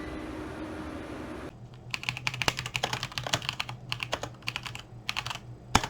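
Typing on a computer keyboard in quick bursts of key clicks, with one sharper, louder clack near the end. Before the typing, a steady background hum cuts off abruptly about one and a half seconds in.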